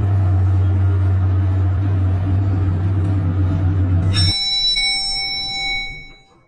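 Elevator running with a steady low hum that stops about four seconds in, as a bright arrival chime rings and fades away near the end.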